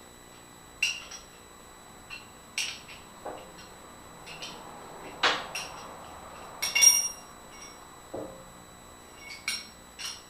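Steel tools and parts clinking and knocking against each other at an irregular pace, with one louder ringing metal clang about seven seconds in.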